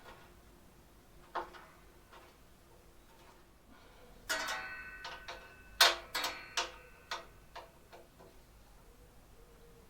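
Hard metal clinks and clanks as parts and tools are handled: a light clink a little over a second in, then a ringing clank partway through and a sharper, louder one about a second and a half later, followed by several lighter clinks.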